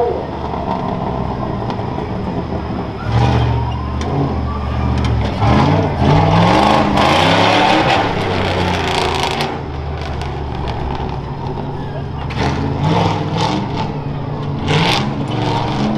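Pickup race truck's engine revving hard over rough dirt, its pitch rising and falling again and again as the driver works the throttle. It is loudest between about five and nine seconds in, with more short bursts of throttle near the end.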